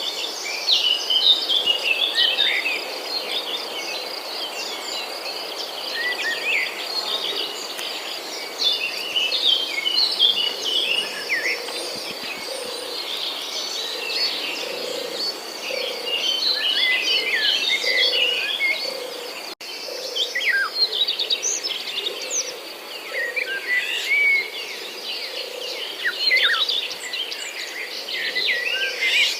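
Many small birds chirping and calling in quick, overlapping bursts, over a steady high-pitched insect trill. The sound cuts out for a moment about two-thirds of the way through.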